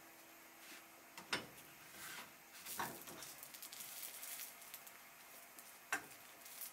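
Faint taps and scraping of a spatula against a small non-stick skillet as a folded mini omelet is slid and turned: a few light clicks, about three in all, and a soft scratchy scrape in the middle.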